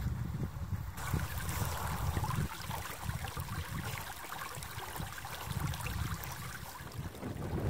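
Meltwater stream flowing in a channel across glacier ice, a steady rushing of water that comes in about a second in, with wind rumbling on the microphone.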